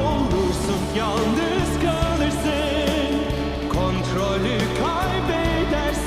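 Music: a solo voice singing a ballad with vibrato over a continuous instrumental backing, with an added echo effect.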